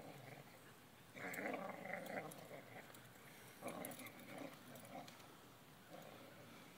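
Dogs growling in play while tugging a rope, in several short bouts: the longest about a second in, shorter ones midway and near the end.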